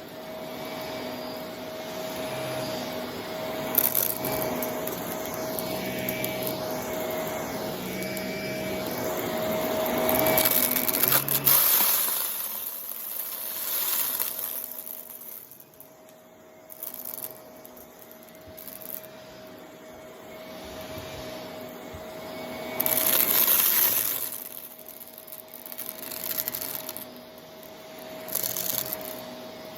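Vacuum cleaner running on a rug with a steady motor whine, its loudness rising and falling as it is pushed back and forth, and repeated bursts of crackling as it sucks up gritty debris ("crunch").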